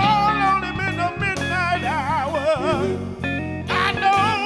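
Gospel lead singer singing with a wide vibrato into a microphone, backed by an electric band of guitars, bass and drums.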